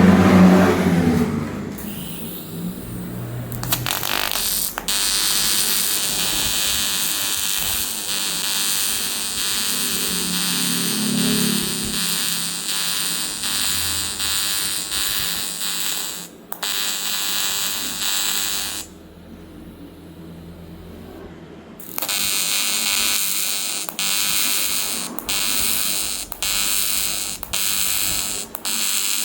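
AC TIG welding arc on aluminium, a loud steady buzz. It stops for a few seconds past the middle, then resumes in short bursts with frequent brief breaks. A low rumble is heard at the very start.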